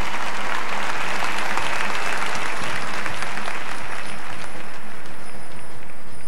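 Large stadium audience applauding: dense clapping that swells in the first second or two and thins out toward the end.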